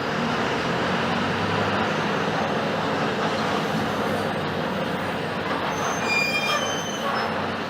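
Mercedes-Benz OF-1721 BlueTec 5 city bus's diesel engine running with steady road and body rumble, and a brief high squeal about six seconds in.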